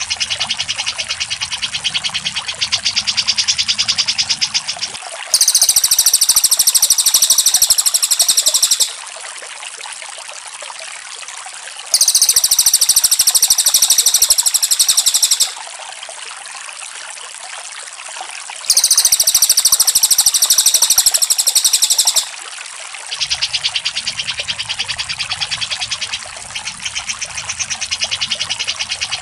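Recorded songbird masteran of cak jenggot and cililin: three loud, very rapid, high-pitched trills of about three and a half seconds each, alternating with a quieter, lower, fast chattering trill over a faint low hum.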